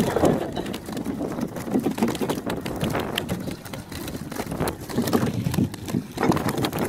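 Irregular knocks and rustling as a fishing net full of freshly caught fish is handled and walked on, on a boat deck, over a low steady rumble.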